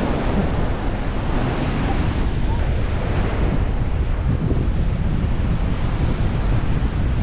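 Storm surf breaking and washing up a sand beach, with gusty wind buffeting the camera's microphone as a steady, heavy rumble underneath.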